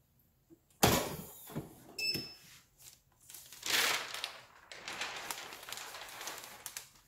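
A clamshell heat press with a slide-out drawer being opened: a sharp clunk about a second in, then a ringing metal clink about a second later as the drawer comes out. Paper rustles through the rest as the protective sheet over the pressed napkin is handled.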